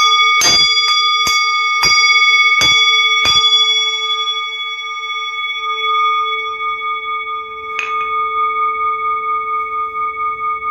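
Singing bowl held on the palm and struck with a mallet about seven times in quick succession over the first three seconds, then once more about eight seconds in. Its ringing tones sustain throughout, with a regular pulsing waver toward the end.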